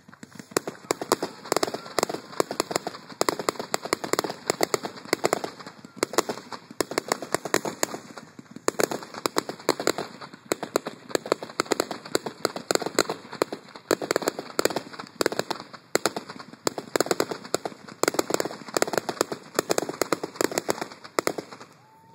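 Aerial fireworks going off in quick succession: a dense run of sharp pops and bangs, bunched into louder clusters every second or two.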